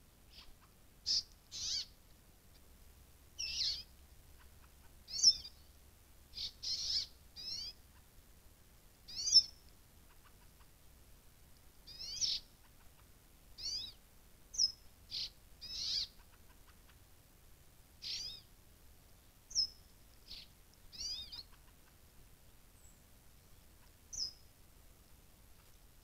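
Short, high-pitched animal calls repeated throughout, one every second or two and some in quick pairs, each a brief gliding note.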